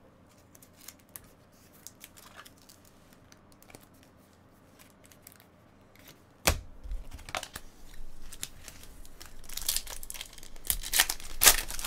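Quiet at first with a few faint clicks. From about halfway in, the foil wrapper of a trading-card pack crinkles and tears open, loudest near the end.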